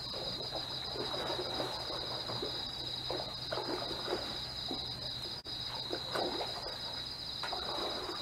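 Night insects trilling in a steady, high, rapidly pulsing chorus. Under it come scattered short, soft noises and a faint low hum.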